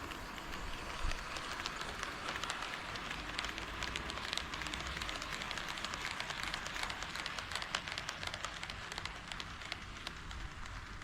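HO scale KATO D51 model steam locomotive running on KATO Unitrack, its wheels making a dense patter of fine clicks over the rails and joints. It grows louder towards the middle and eases off near the end, as the train passes close by.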